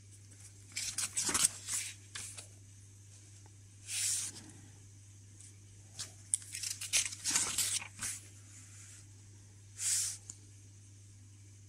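Paper pages of a small printed booklet being handled and turned by hand: bouts of dry rustling and page flips every two to three seconds, over a low steady hum.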